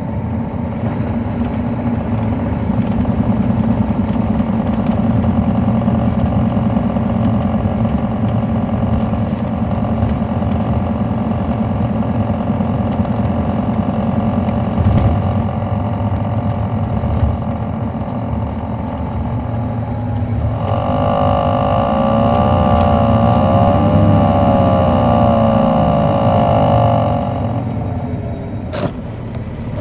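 Caterpillar C13 diesel engine of an MCI D4500CL coach running under way, heard from on board as a steady low drone. About two-thirds of the way through, a loud wavering high-pitched whine joins it for roughly six seconds.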